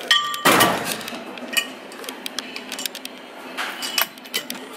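Steel weight stack of a cable machine clinking as the selector pin is pulled out and moved to a lighter plate for a drop set. A ringing metal clink at the start, a louder clatter just after it, then single clicks about a second and a half in and again near the end.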